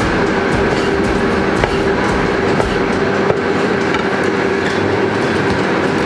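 Steady mechanical hum of a running kitchen appliance, with a few light knife taps on a chopping board as avocado is cut into strips.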